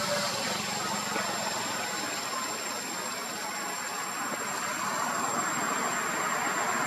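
Steady background noise with a thin, high-pitched whine above it and no distinct calls; it grows a little louder near the end.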